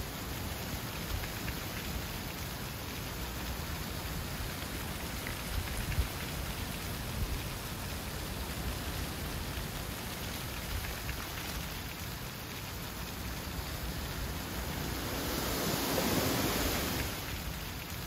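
Dry autumn leaves rustling and skittering across a gravel path in gusty wind: a steady crackling hiss over a low wind rumble, swelling louder with a gust near the end.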